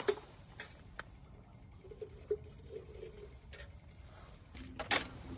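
Scattered clinks and knocks of dishes and utensils being handled, the loudest at the start and again about five seconds in, with a faint wavering squeak about two to three seconds in.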